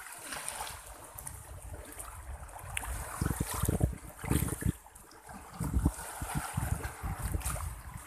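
Wind gusting on a phone's microphone in irregular low rumbles, over a faint wash of calm shallow seawater lapping at the shore.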